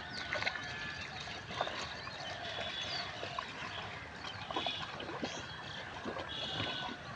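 Water sloshing and dribbling as pigs root with their snouts in a shallow muddy puddle, with scattered small splashes and clicks.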